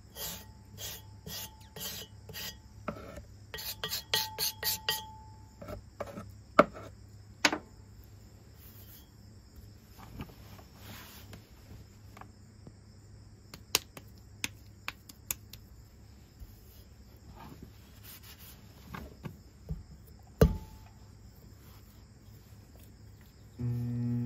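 A scraper rasps across the potter's wheel head in quick strokes, scraping off the wet clay. Scattered scrapes and knocks follow, with one loud knock about 20 seconds in, over a steady high insect trill. Just before the end a steady hum starts.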